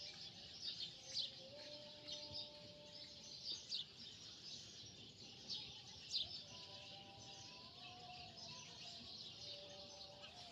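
Birds chirping faintly in a continuous background chorus of many short calls.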